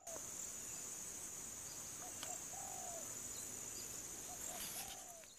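Steady high-pitched shrilling of evening insects, with a dove's soft low coos about two seconds in and again near the end.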